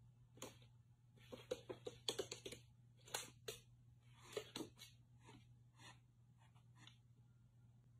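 A cat's claws clicking and tapping on a wooden floor as it walks and paws about: faint, irregular clicks, thickest two to three and a half seconds in, over a low steady hum.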